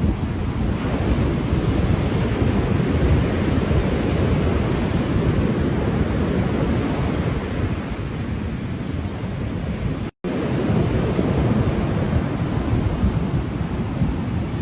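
Ocean surf: a steady rush of waves, heaviest in the low end, that cuts out to silence for an instant about ten seconds in.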